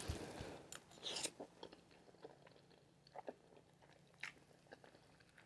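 Faint, close-miked chewing of spaghetti noodles in Alfredo sauce: scattered wet mouth clicks and smacks, busiest in the first second or so, then sparser.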